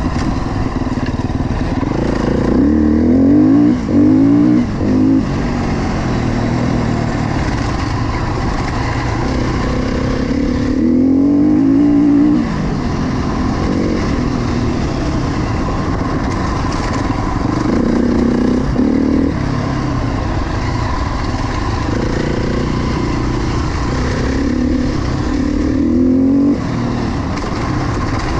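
KTM 350 XC-F four-stroke single-cylinder dirt bike engine running under load on a forest trail. The throttle opens and closes again and again: the engine note climbs and drops through several surges, the loudest about a third of the way in, at the middle and near the end.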